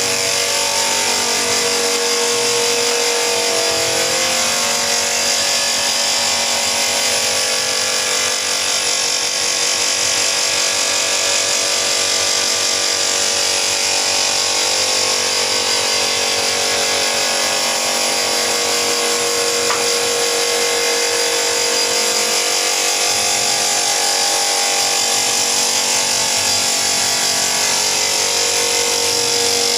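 Electric woodworking power tool running steadily without a break, a continuous whine with a strong high hiss.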